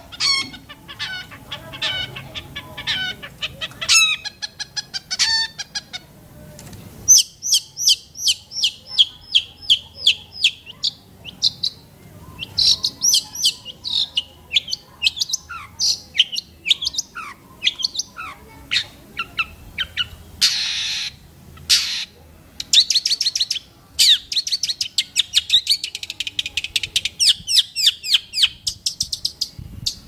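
Long-tailed shrike singing: fast runs of sharp chirps and trills, with a brief harsh rasping note about twenty seconds in.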